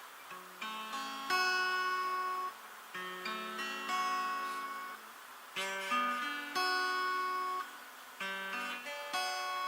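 Acoustic guitar strumming chords with no singing, each chord ringing and fading before the next strum about every one to two seconds.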